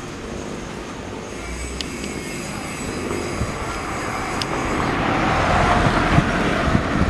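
Airbus A320 jet engines at takeoff power during the takeoff roll, heard at a distance as a steady rushing noise that grows louder through the second half.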